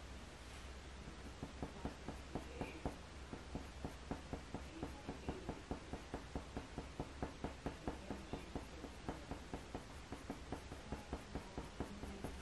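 Faber-Castell Polychromos coloured pencil making quick, short flicking strokes on heavy hot-press watercolour paper, about four light ticks a second, as fine fur hairs are drawn.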